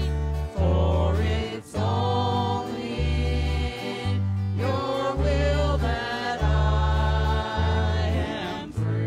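Worship band music: several voices singing together over acoustic guitar and bass guitar, the bass moving to a new note about every second.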